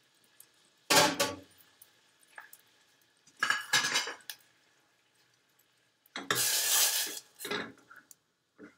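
Kitchen dishes, pans and utensils clattering and clinking in a series of separate knocks a few seconds apart, the longest a rattle lasting about a second around six seconds in.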